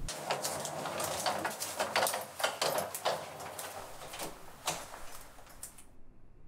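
A run of irregular clicks, knocks and rustles of footsteps, clothing and a handbag, with a door being handled as someone walks out; it thins out and fades to quiet about five seconds in.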